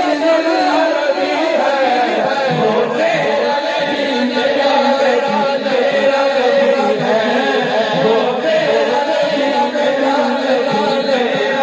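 A man's voice chanting a devotional song into a microphone, amplified, with several voices overlapping.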